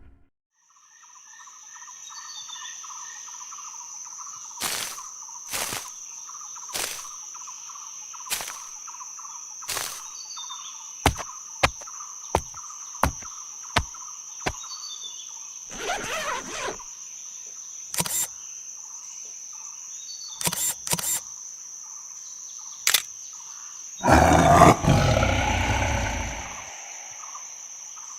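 Staged outdoor ambience of birdsong and a steady high insect drone, broken by a series of sharp knocks that speed up partway through. Near the end comes a loud burst of noise with a deep rumble, lasting about two seconds.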